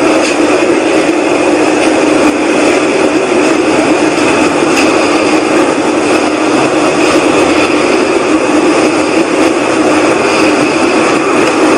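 Loud, steady rushing drone with a low hum and a higher whine over it, unchanging throughout. This is one of the unexplained 'strange sounds' heard in the night sky, which the recorder calls a wild, whooshing sound.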